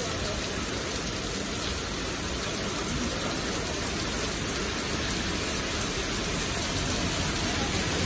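Heavy rain pouring onto a street and parked cars: a steady, even hiss.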